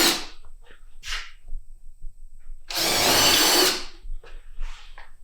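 Power drill with a 3/16-inch bit boring a hole in a wall for an anchor: a brief spin about a second in, then a run of about a second near the middle, its motor pitch wavering under load.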